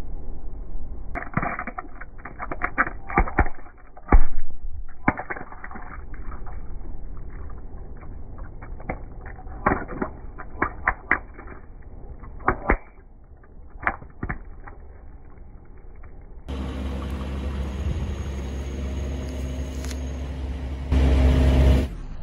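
A mesh stress ball of water beads crushed under a slowly rolling car tyre: a long run of sharp pops and cracks, heaviest in the first few seconds. About three-quarters through, after a cut, a steady low rumble as the car rolls onto foam clay, louder for a moment near the end.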